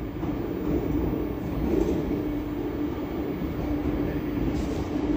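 Omneo Premium (Bombardier Regio 2N) double-deck electric train pulling slowly into a covered station: a steady low hum with rumble underneath.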